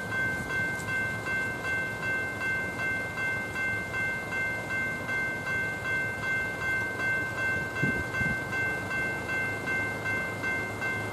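General Signals E-Bell level crossing warning bell ringing in a steady even rhythm, about two strokes a second, each stroke a bright metallic chime. This is the sign that the crossing is active for an approaching train.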